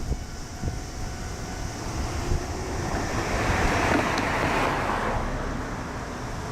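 A vehicle passing by, its noise swelling and fading over about three seconds, over steady wind noise on the microphone.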